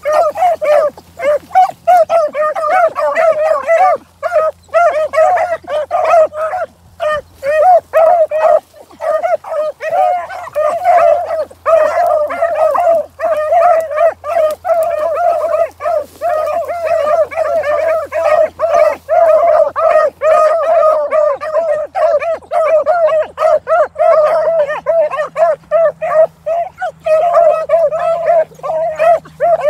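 Two beagle-type hounds baying and yelping almost without pause, several high cries a second, as they work through brushy cover on a scent.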